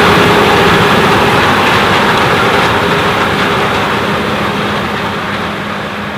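Fendt Ideal 9T combine running under load while harvesting corn: a steady heavy engine and machinery drone that gradually fades toward the end.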